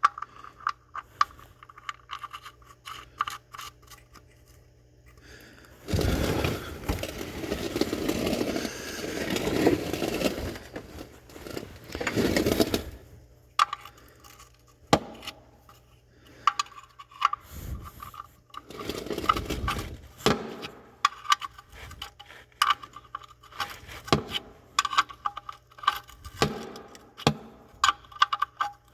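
Metal tool and oil drain plug handling: irregular clinks, knocks and scrapes as the drain plug is screwed back into the oil pan, with a longer stretch of loud scraping noise from about six to thirteen seconds in.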